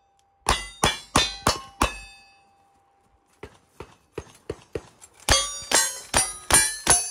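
A quick string of five revolver shots, each followed by the ring of a steel plate target being hit. After a short pause filled with faint clicks of gun handling, a lever-action rifle opens fire, about two and a half shots a second, each hit ringing off the steel.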